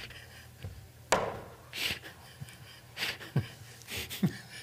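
A man laughing silently into a headset microphone: a string of breathy gasps and exhalations, some dropping in pitch, with a sharp knock about a second in.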